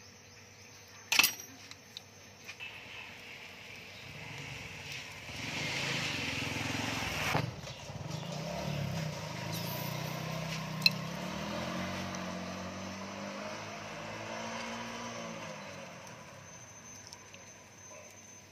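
A motor vehicle engine running, its pitch rising and falling, swelling from about four seconds in and fading away near the end. A single sharp click about a second in.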